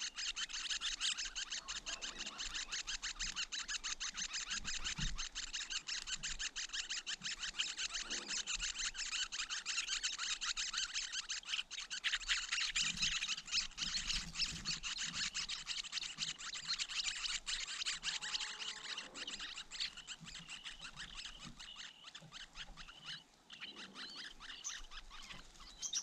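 Red-billed leiothrix nestlings begging at the nest: a rapid, dense run of high chirps that thins out and gets quieter over the last several seconds.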